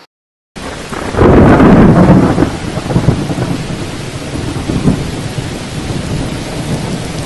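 Thunderstorm: a loud roll of thunder about a second in, settling into a steady hiss of rain. The sound starts and stops abruptly, as an inserted clip.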